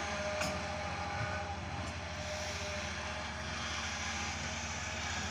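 Fiat-Hitachi EX200 excavator's diesel engine running steadily under work, a low pulsing drone with a couple of faint clicks in the first two seconds.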